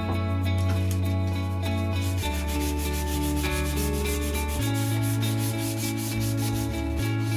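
Hands rubbing up and down a wooden mallet handle in quick, even strokes, several a second, as it is smoothed. Background music with sustained notes plays along, its bass note changing every couple of seconds.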